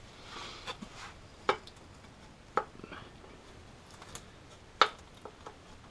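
Scattered light clicks and taps of parts being handled and fitted back under the intake manifold of a 1.8T engine, about eight in all at uneven intervals, the sharpest click a little before the end.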